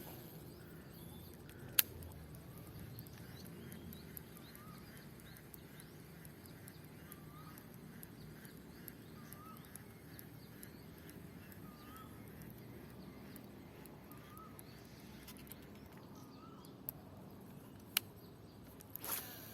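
A bird calling the same short rising-and-falling note about every two seconds over faint outdoor ambience, with a few sharp clicks, one about two seconds in and two near the end.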